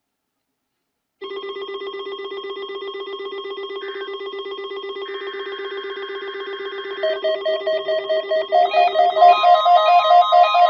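Emerson WBS12 weather radio sounding its electronic alert alarm, set off by the weekly test broadcast. About a second in, a steady, rapidly pulsing buzz starts. More pulsing tones pile on about seven and nine seconds in, and a steady higher tone joins near the end.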